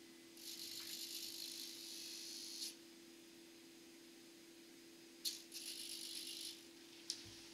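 Model railway level-crossing servo whirring as it drives both crossing gate beams through a dowel and pull wires. It runs for about two seconds as the gates rise, then again for about a second, about five seconds in, as they lower, and each run starts with a click. A low steady hum lies underneath.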